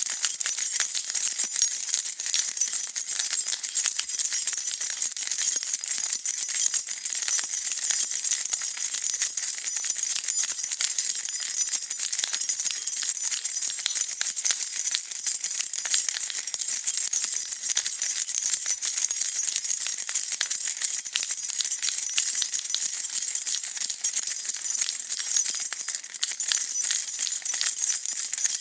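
A bunch of metal keys being shaken continuously, jingling and clinking against each other in a dense, steady rattle of bright metallic chinks.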